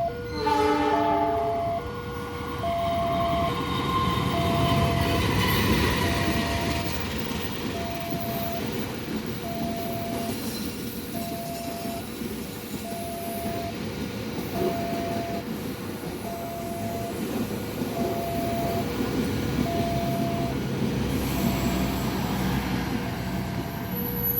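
A train gives a short horn blast about half a second in, then runs past with a steady rumble of wheels on rail. Throughout, a level-crossing warning alarm keeps sounding its repeating two-note chime, about one note change a second.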